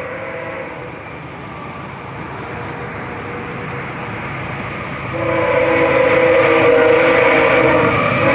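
CSX freight train's diesel locomotives approaching, their rumble slowly growing louder; about five seconds in the lead locomotive's air horn starts blowing loud, several notes sounding together as one steady chord, with a short break near the end.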